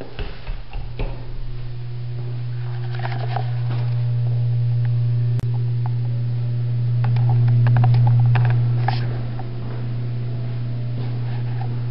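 A steady low hum that swells louder for a few seconds past the middle, with scattered light clicks and knocks over it.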